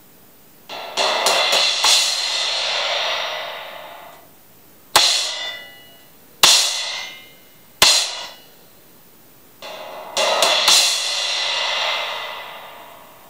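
Homemade O-Zone-style crash cymbal, an old crash with four large holes drilled in it, struck with a drumstick and giving a trashy sound between a crash and a china. A run of quick strikes about a second in builds into a wash that rings for a few seconds. Three single hits follow, each dying away within about a second, and then another run of strikes rings out near the end.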